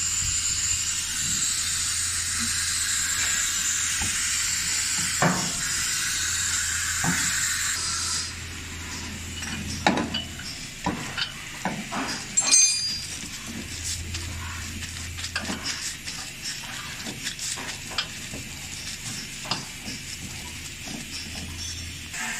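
A steady hiss for about eight seconds, then scattered clicks and knocks as a new WABCO air dryer cartridge is handled and screwed onto the air dryer housing of a truck's air brake system.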